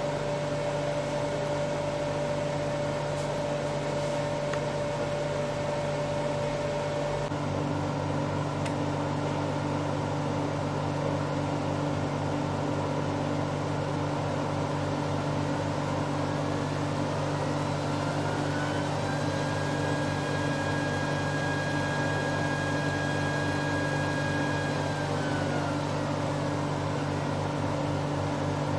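Charnwood W821 midi woodturning lathe's electric motor running under its electronic variable speed control, with a steady hum. A little past halfway, a whine rises in pitch as the speed is turned up, holds steady, then falls back as it is turned down near the end.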